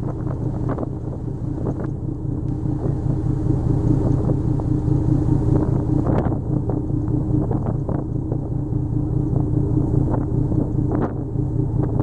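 A boat's engine running with a steady low hum, with wind buffeting the microphone in irregular gusts.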